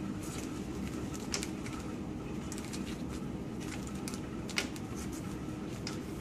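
Plastic tubing and connectors of a CRRT circuit being handled: a few light clicks and rustles, one a little louder just past the middle, over a steady low hum.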